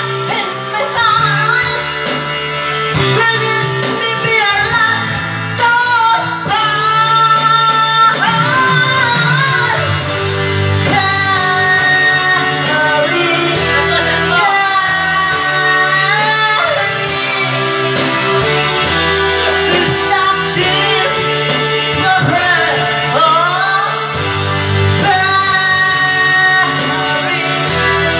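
A man singing into a handheld microphone over instrumental backing music with a steady bass line.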